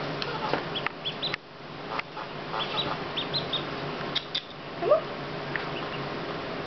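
Newly hatched Pekin duckling peeping: short, high chirps in small runs. A few light clicks come through, and about five seconds in there is one lower, louder rising sound.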